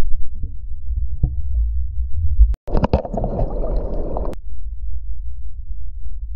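Muffled low rumble of churning ocean water around a camera in a waterproof housing. A little over two and a half seconds in, the sound drops out for an instant and a hissing rush of surf lasts about a second and a half. Then the low rumble returns.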